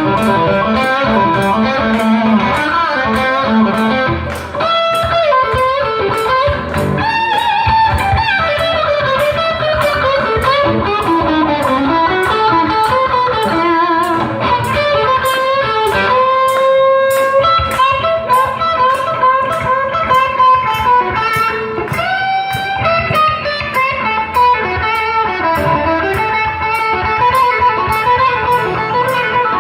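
A blues band's instrumental break: an electric guitar plays a lead solo with bent notes over bass and a steady drum beat.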